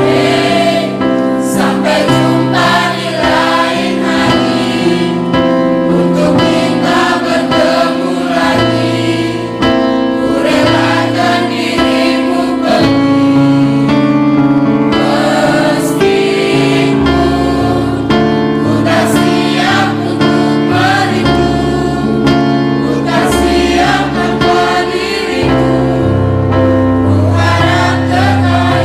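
A mixed choir of students singing in several-part harmony, holding long chords.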